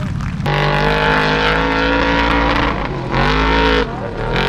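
Formula offroad buggy's engine running hard at high, steady revs as the buggy climbs a steep gravel slope. The engine starts abruptly about half a second in, and its note dips and rises again near three seconds. It cuts off suddenly near the end, and a second buggy's engine comes in climbing in revs.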